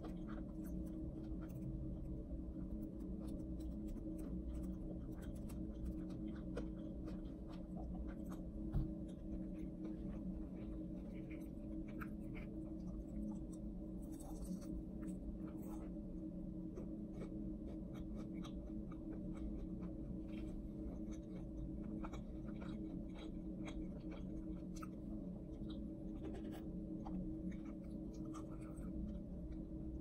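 Crispy fried chicken coating crackling and crunching as fingers pick at it and tear pieces off, a steady patter of small sharp crackles with one louder snap about nine seconds in. A steady low hum runs underneath.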